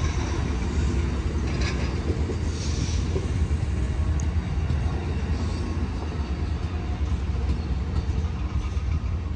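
Amtrak Superliner bi-level passenger cars rolling past on the rails as the train pulls out: a steady low rumble of wheels on track, with a few faint higher hisses a couple of seconds in.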